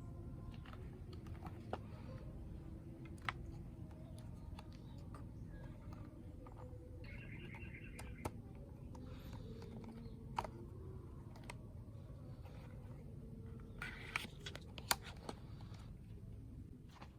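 Scattered light clicks and taps of plastic toy guns being handled, over a low steady hum, with a cluster of clicks about fourteen seconds in and a brief high chirp about seven seconds in.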